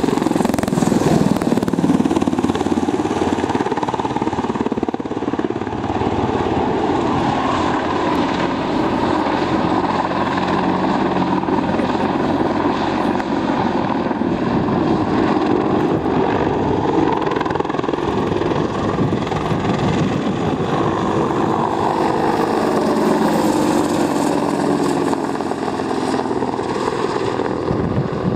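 AH-64 Apache attack helicopter in flight: the steady rush of its rotors and twin turboshaft engines. Its pitch drops about three quarters of the way through as it passes.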